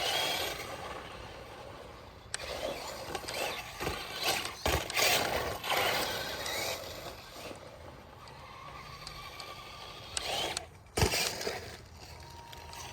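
Radio-controlled monster truck driving a freestyle run: motor and tyres running on the track, with several sharp knocks as it lands and hits things.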